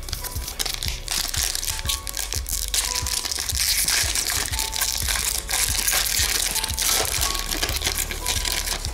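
A hockey card pack's wrapper crinkling and tearing as it is opened by hand. The crackling grows louder a few seconds in, over faint background music.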